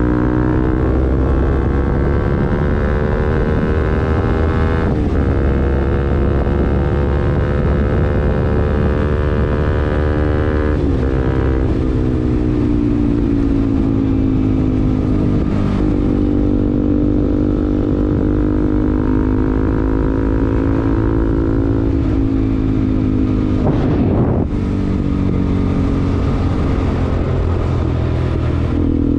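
Bajaj Pulsar NS200's single-cylinder engine through an aftermarket R9 racing exhaust, ridden on the road. It pulls up in pitch through two quick upshifts in the first eleven seconds, then cruises at a steadier, slowly easing pitch, with a brief break near the end.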